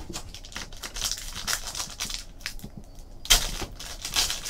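Crinkling and tearing of a 2014 Panini Totally Certified football card pack's wrapper as a pack is opened, with cards being handled, and a sharp rip about three seconds in.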